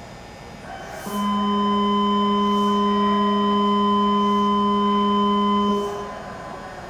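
A steady electronic departure signal tone sounds for about five seconds, starting sharply about a second in and cutting off near the end, over the low hum of the platform, signalling that the subway train is about to leave.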